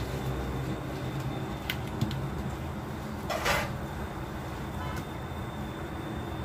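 Knife work on a cutting board: a couple of light knocks about two seconds in and a short scrape about halfway through, over a steady low hum.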